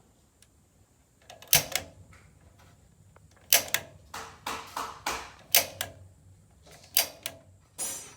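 Igniter button on a Honeywell gas water heater's control valve being clicked repeatedly while the pilot knob is held in, to light the pilot. A series of sharp clicks, mostly in quick pairs.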